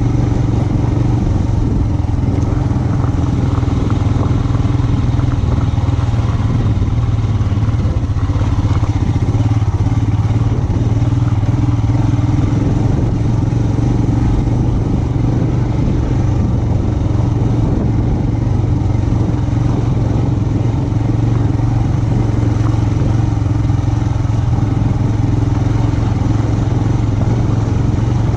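Royal Enfield Himalayan 411's single-cylinder engine running at a steady, even pace while riding off-road.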